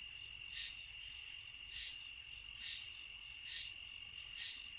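Insects calling in the background: a faint, steady high trill with a short chirp repeating about once a second.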